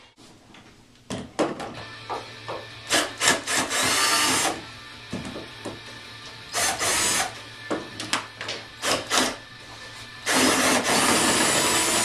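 Cordless 18-volt drill/driver running in several bursts to back screws out of a door hinge, the longest burst near the end. There are short clicks and knocks between the runs.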